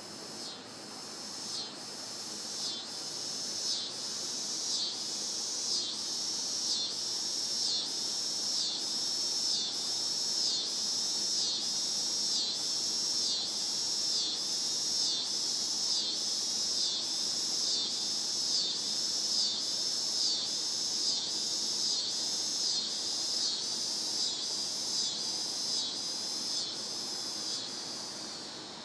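Cicadas singing, a high buzzing chorus that pulses in even waves about once a second, growing louder over the first several seconds and fading near the end.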